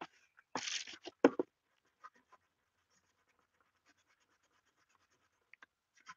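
Football helmet's plastic shell being scuffed by hand with an abrasive scuff pad, dulling the shiny spots as paint prep. A louder scratchy scrape about half a second in is followed by two sharp knocks, then faint scattered scratching strokes.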